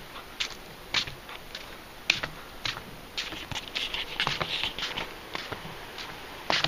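Footsteps along a trail, about two steps a second, each a short scuffing crunch, with denser rustling around the middle.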